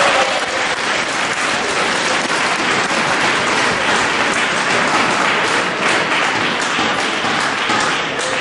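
Crowd of spectators applauding after a point, a steady dense clapping that eases off slightly near the end.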